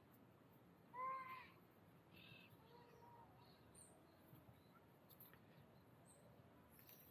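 Faint outdoor background with one short pitched animal call about a second in, rising then falling slightly in pitch, followed by a few faint high chirps.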